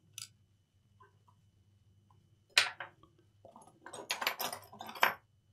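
Small handling noises at the repair bench as a chip is taken out and set on the board: a brief click, then a sharp tap about two and a half seconds in, followed by a second or so of rustling and small clicks.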